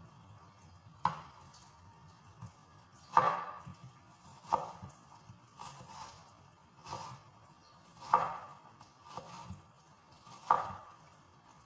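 Knife chopping an onion on a cutting board: single sharp chops at an uneven pace, roughly one every second or so, some louder than others.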